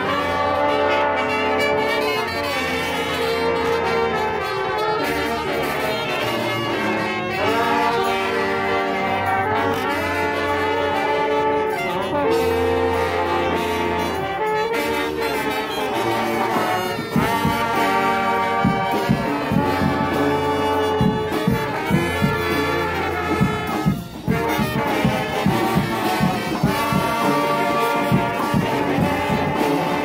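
Street brass band playing: trumpets, trombones and saxophone over a low bass line. Sharp drum hits come in strongly about halfway through.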